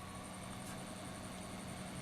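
Desktop PC running: a steady low hum with a faint high-pitched pulsing tone over it. This is the odd noise the owner is trying to trace, which he suspects comes from the water-cooling radiator.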